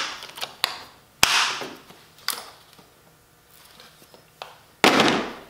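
A small plastic tool case being closed and handled on a metal workbench: several sharp plastic clacks, with the loudest near the end.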